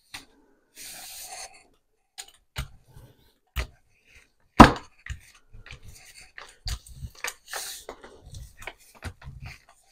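Hands rubbing craft paper down onto a gel printing plate, then a rubber brayer rolled over the back of the paper: soft paper rubbing and low rumbling roller passes, with scattered clicks and knocks, the loudest a sharp knock a little before halfway.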